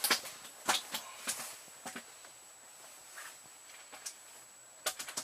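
A few short knocks and clicks, most in the first two seconds and one just before the end, over a faint steady high-pitched whine.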